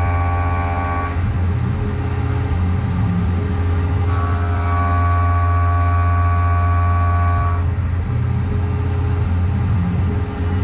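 Tormach CNC mill machining: a steady low hum with a pitched whine that drops out about a second in and returns for a few seconds in the middle, as the cutter goes in and out of the cut.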